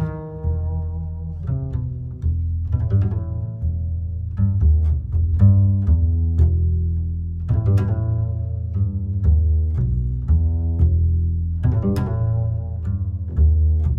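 Background music of string instruments: plucked notes that start sharply and fade, over a steady low bass line.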